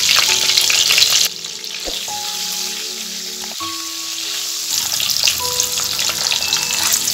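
Peeled hard-boiled eggs sizzling in hot soybean oil in a non-stick pan as a spatula turns them. The sizzle drops away suddenly about a second in and builds back near the end.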